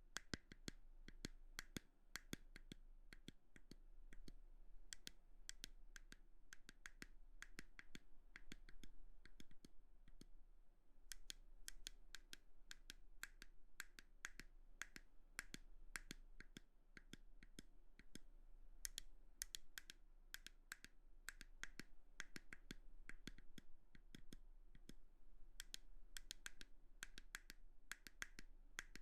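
Close-miked ASMR trigger sounds: soft, irregular, crisp clicking and tapping, several small clicks a second with brief lulls, over a faint low hum.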